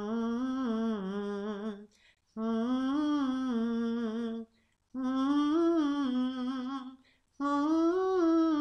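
A singer's voice humming a held nasal 'n' four times, each note about two seconds long with short breaths between, wavering slightly and the last one a little higher. This is the resonance exercise of keeping the hummed N placed high in the nose and face while the jaw moves from side to side.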